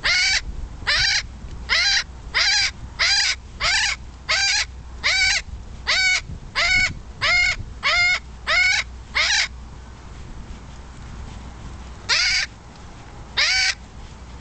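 Amazon parrot screaming: a run of about fourteen short, loud squawks, a little over one a second, then a pause of about three seconds and two more near the end. A low rumble of wind on the microphone from the moving bicycle lies underneath.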